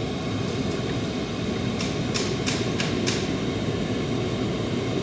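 Enclosed diesel air heater running steadily, its blower and burner making an even rushing noise. Four short, high hissing ticks come about two to three seconds in.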